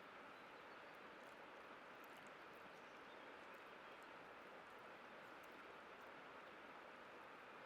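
Faint, steady rush of a river's white water, an even noise without breaks, with a few faint high ticks over it.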